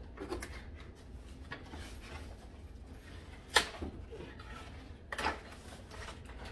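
Wooden toy pieces and cardboard packaging being handled: a sharp knock about three and a half seconds in and another brief knock a second and a half later, with light rustling and scraping between.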